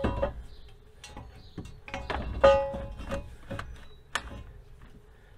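Cast-iron exhaust manifold being handled against the cylinder head and its studs: a string of irregular metal clanks and clinks, each with a short ring. The loudest knock comes about two and a half seconds in.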